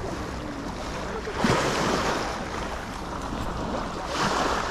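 Small waves washing on a sandy shore, with wind on the microphone; the rushing noise swells twice, about a second and a half in and near the end.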